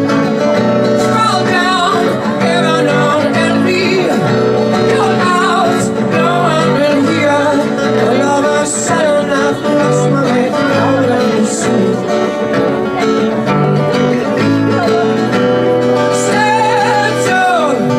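Live acoustic music: a steady, repeating low plucked-string pattern with a melody line above it that slides up and down in pitch.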